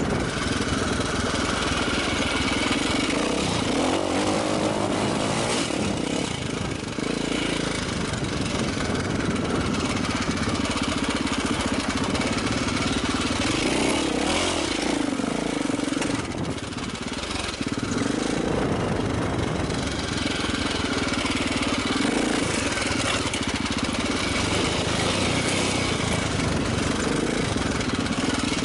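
450 cc enduro dirt bike engine running while riding off-road, its revs rising and falling as the throttle is worked, easing off briefly a little past halfway.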